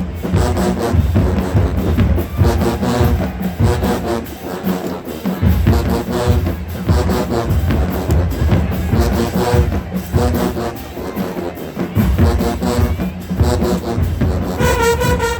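Marching band playing: brass over heavy bass drums and percussion in a driving beat, with a brighter, higher brass chord coming in near the end.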